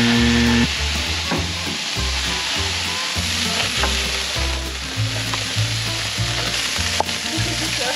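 Weakfish fillets on a bed of herbs sizzling steadily on a hot gas grill. The herbs went on without being wetted and are smoking and flaring. A brief held electronic tone sounds at the very start, and a low bass line of background music runs underneath.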